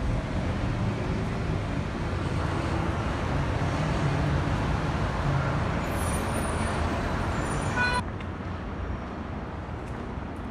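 City street traffic noise: a steady rumble of passing cars and buses. About eight seconds in it drops abruptly to a quieter steady hum.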